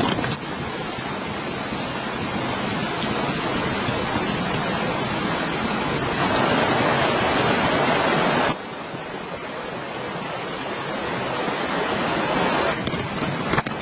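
Steady rain falling, an even hiss. It drops suddenly to a lower level about eight and a half seconds in.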